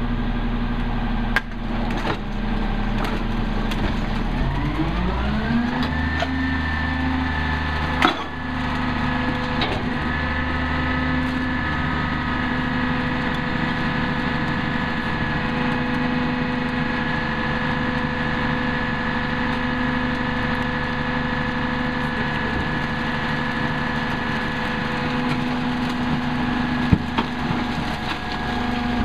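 Peterbilt 320 recycling truck's diesel engine idling, then speeding up to a higher steady speed about five seconds in and holding it. A few sharp knocks come from bags and bottles being tossed into the rear hopper.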